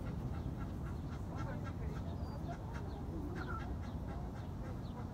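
Birds calling, many short chirps and a few longer calls, over a steady low outdoor rumble.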